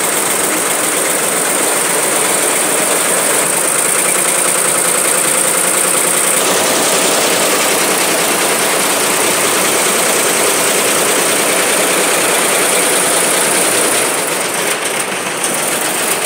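Multi-head computerized embroidery machine with sequin attachments running, its needles stitching in a steady, rapid clatter; the sound changes a little about six seconds in.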